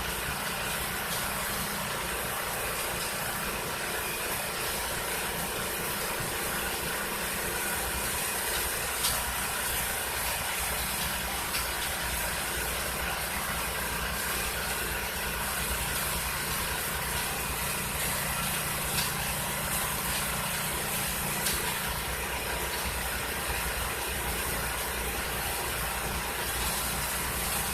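A small engine running steadily under a loud hiss, with a few short knocks along the way.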